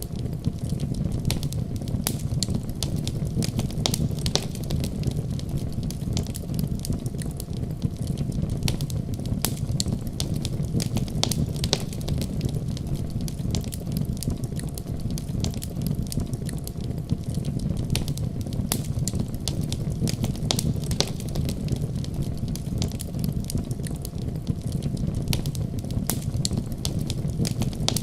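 Wood fire crackling, with frequent sharp pops scattered irregularly over a steady low rumble.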